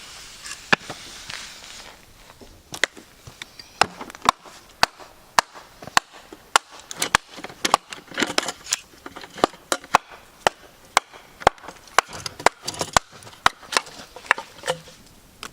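Dense hardwood firewood being chopped and split by hand, sharp woody knocks in quick irregular succession.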